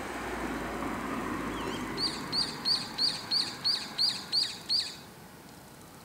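Brown-eared bulbul calling: a quick run of nine sharp, high notes, about three a second, starting about two seconds in.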